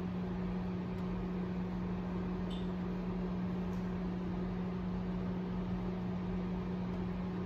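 Steady hum of a countertop convection oven's fan running while the oven preheats.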